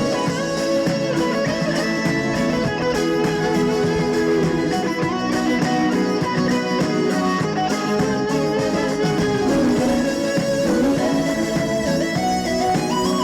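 Instrumental break of a Korean trot song, the band backing playing a melody line with no vocals.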